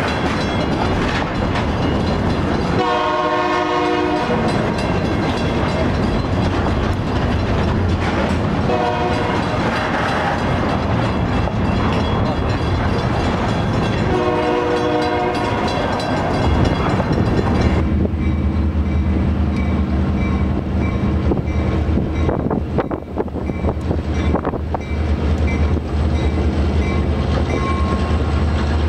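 Multi-chime air horn of a diesel locomotive sounding three blasts, long, short, long, over the rumble and clatter of a moving train. About two-thirds of the way in the sound changes to the steady low drone of a diesel locomotive engine.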